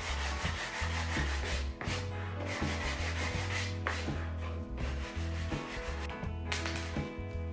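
Hand rubbing or sanding back and forth on a wooden board, in repeated scraping strokes of about a second each, with background music underneath.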